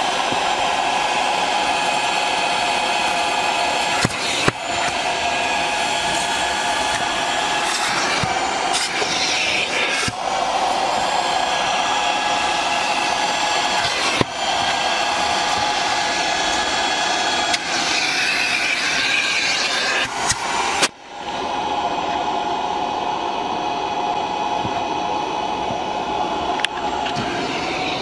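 Vacuum motor of an upholstery extractor whining steadily as its clear nozzle is drawn across a cloth car seat, sucking dirty water out of the fabric. The sound drops out briefly about three quarters of the way in.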